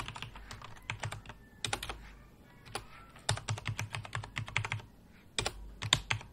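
Computer keyboard being typed on: runs of quick keystroke clicks with short pauses between them, the longest run a little past the middle.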